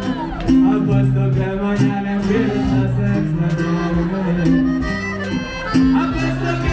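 Loud Latin music from a stage PA system at a live show, with a heavy bass line, a melody instrument and a singer's voice.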